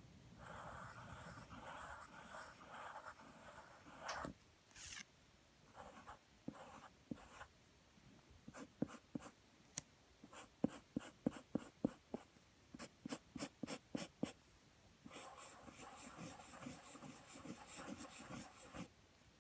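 Pencil scratching across paper while sketching: long continuous strokes for the first few seconds and again near the end, with a run of short, quick strokes in between.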